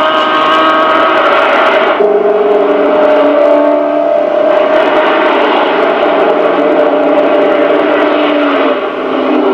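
Rally car engines running at night, a loud steady drone of several engine tones. The pitch changes abruptly about two seconds in and again near the end.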